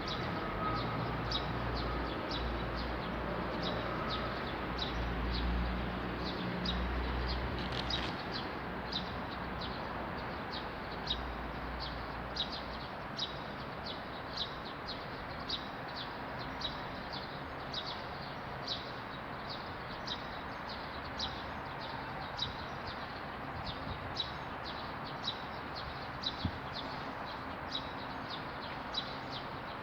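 A bird repeating one short, high, falling chirp about twice a second, steadily throughout, over a constant background hiss. A low rumble sits underneath for the first eight seconds or so, then fades.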